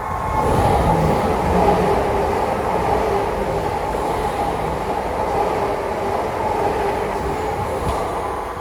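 A train passing close by: a loud rumble of wheels on track with steady mid-pitched tones. It builds over the first second, holds, and begins to fade near the end.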